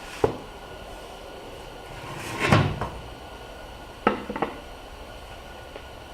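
A few knocks and a clatter of wooden pieces or tools being handled and set down: one sharp knock, a longer rattling clatter a couple of seconds later, then two quick knocks, over a steady hum.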